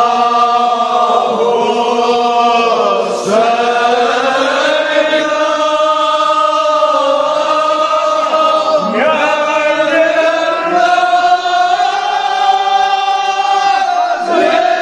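A group of men chanting a Kashmiri marsiya in unison, holding long drawn-out notes that swoop down and back up about every five to six seconds.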